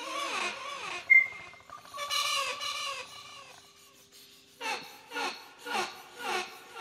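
Cry-like vocal sounds in an experimental soundtrack: wavering wailing calls, a sharp click with a brief high tone about a second in, then a steady low hum and a run of five short calls about half a second apart near the end.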